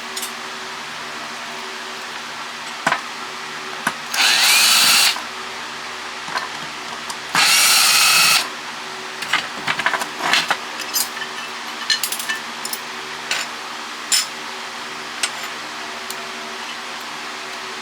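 Power drill/driver running in two short bursts of about a second each, driving screws out of a satellite LNBF housing, followed by scattered light clicks and clatter of small parts.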